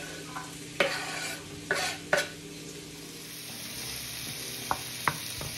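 Chopped white onion sizzling in hot olive oil in a frying pan, a steady hiss. A few sharp knocks in the first two seconds and two lighter ones near the end, as the cutting board and wooden spoon strike the pan while the onion is tipped in and stirred.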